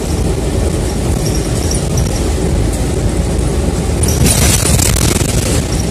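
City bus running, its engine and road rumble heard from inside the passenger cabin. A burst of hiss comes in about four seconds in and lasts about a second.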